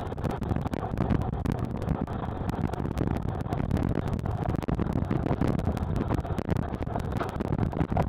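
Sped-up recording from a sled on a snow trail: runner, trail and wind noise squeezed into a dense, rapidly flickering rush.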